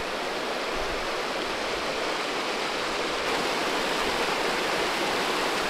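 Shallow creek flowing over rocks: a steady rush of running water.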